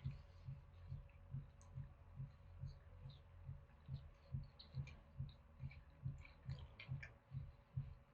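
Someone chewing a mouthful of fried chicken burger close to the microphone: soft low thumps of the jaw at about two and a half a second, with faint wet clicks.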